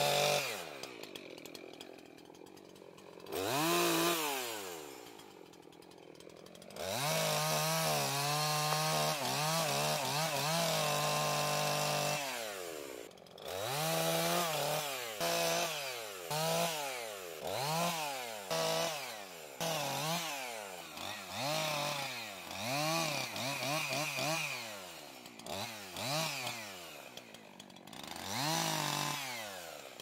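Husqvarna two-stroke chainsaw cutting up tree limbs. The engine revs up and drops back to idle again and again, with a long steady run in the middle and quick throttle blips about once a second through the second half.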